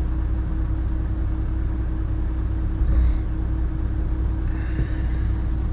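Volvo FM 340 truck's diesel engine idling, heard from inside the cab as a steady low rumble with a constant hum, swelling briefly about three seconds in.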